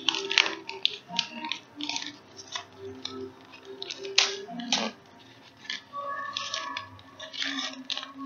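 Clicks, rattles and crackles of a small toy surprise box being handled and opened by hand, with music playing in the background.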